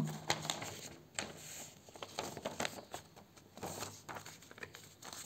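Sheet of paper being handled: scattered soft rustles and light clicks, irregular and quiet.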